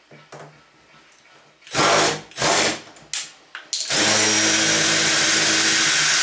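Lotus cordless drill backing screws out of a door knob: a few short whirs, then a steady run from about four seconds in.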